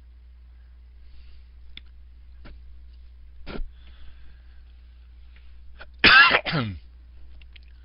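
A person coughing twice in quick succession about six seconds in, the pitch falling within each cough, over a low steady hum. A few faint clicks come before it.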